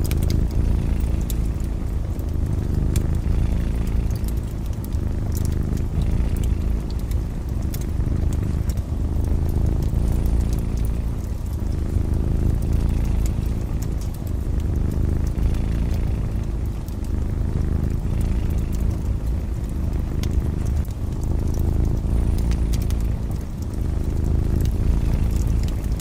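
Cat purring, a continuous low rumble that rises and falls in slow waves, over a crackling wood fire with scattered small pops.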